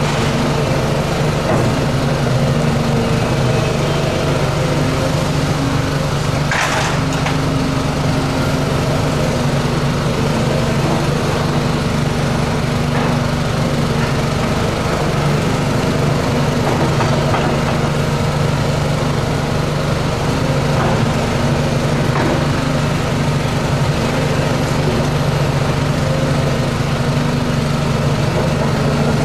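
Volvo tracked excavator's diesel engine running steadily as the boom and arm move, with one sharp clatter about seven seconds in and a few fainter knocks after.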